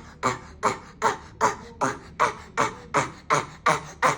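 A child coughing over and over in a fast, even rhythm, about two and a half short coughs a second without a pause: the repetitive cough of psychogenic (habit) cough.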